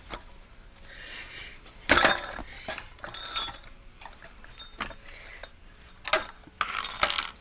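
Metal parts of an old ceiling fan clinking and clattering as they are bent and pulled apart by hand: several separate sharp clinks, the loudest about two seconds in and two more near the end.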